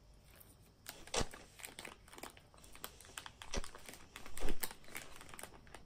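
Crinkling and rustling with scattered sharp clicks, the loudest about four and a half seconds in.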